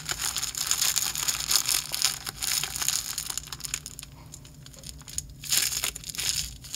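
Plastic zip-lock bag crinkling and rustling as hands squeeze shaving foam out of it, easing off for a moment about two-thirds of the way through.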